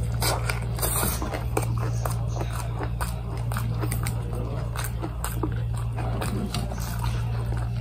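Close-up chewing of a mouthful of tuna burrito: a bite at the start, then a steady run of wet mouth clicks and small crunches, over a constant low hum.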